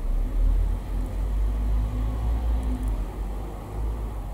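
A low, uneven rumble, with a faint steady hum above it that fades out near the end.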